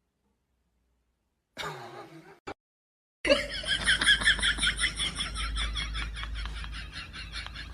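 A person laughing in quick, repeated snickering bursts, starting about three seconds in over a low steady rumble; a brief shorter sound comes just before it.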